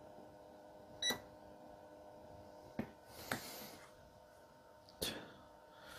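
Capacitor spot welder firing through copper probes onto a nickel strip on an 18650 cell: a sharp snap with a brief high beep about a second in, then smaller clicks around three and five seconds, over a faint steady hum.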